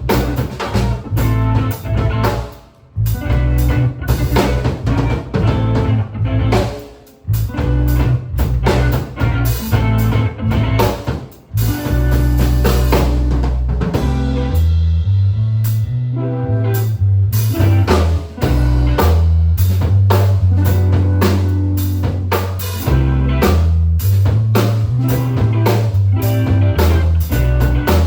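Live band playing an instrumental passage on drum kit, bass and guitar. Through the first half the band stops short several times for a beat, then settles into continuous playing with a strong, moving bass line.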